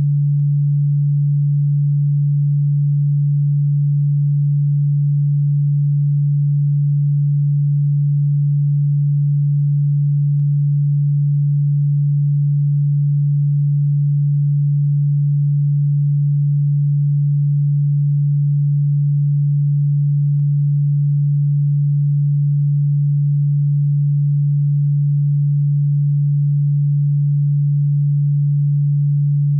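A synthetic steady low-pitched sine tone, a continuous pure hum near 150 Hz, played as a cockroach-repellent sound. A faint click sounds about every ten seconds.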